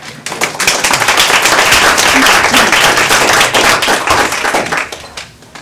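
An audience applauding. The dense clapping builds within the first half second and dies away about five seconds in.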